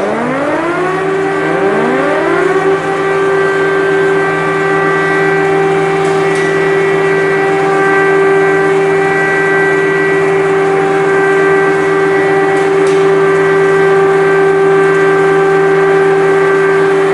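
Air-raid sirens winding up, rising in pitch over the first two to three seconds, with a second siren joining about a second and a half in. They then hold one loud, steady tone.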